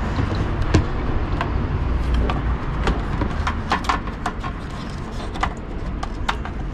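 Irregular sharp clicks and light metallic taps from hand tools and parts being handled under a car, over a steady low rumble.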